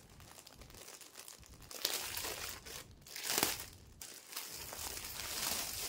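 Plastic garment packaging crinkling and rustling as a folded suit is unwrapped and handled, in several bursts, loudest about halfway through.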